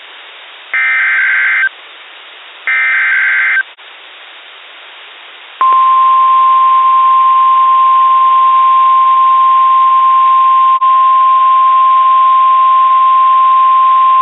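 NOAA Weather Radio EAS alert tones: the last two of the three SAME header data bursts, each a harsh digital screech about a second long, then, after about two seconds, the steady single-pitch 1050 Hz warning alarm tone held for about nine seconds. The alarm tone signals a warning-level alert, here a severe thunderstorm warning.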